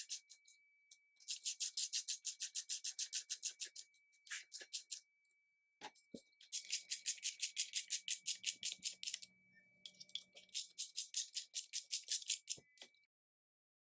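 Ratchet wrench clicking in quick, even runs of about nine clicks a second, broken by short pauses and a few single knocks, as the pinch bolts of the motorcycle's outer triple clamp are tightened.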